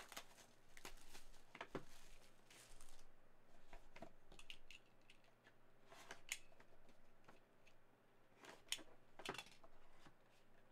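Faint, scattered scrapes, crinkles and small clicks of plastic shrink wrap being cut open and pulled off a sealed trading card box.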